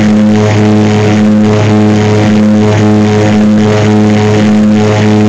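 Small propeller plane's piston engine and propeller at climb power, heard from inside the cockpit: a loud, steady drone of fixed pitch with a regular pulsing beat.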